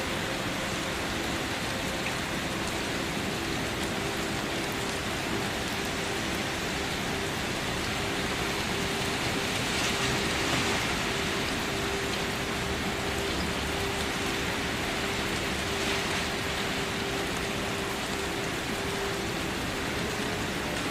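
Steady rain falling, an even hiss of many drops on a surface, swelling slightly about halfway through.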